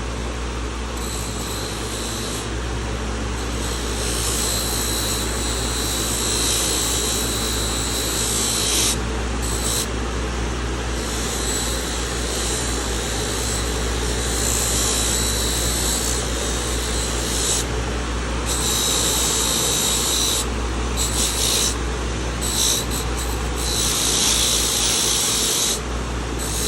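A power tool's motor running steadily while a closed steel pocket knife is held against it to clean off rust, giving a scratchy hiss that stops briefly several times as the knife is lifted off and put back.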